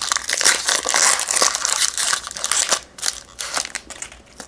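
Wrapper of a 2014-15 SP Authentic basketball card pack crinkling as it is torn open and the cards are pulled out: dense crackling that thins to a few scattered crinkles about three seconds in.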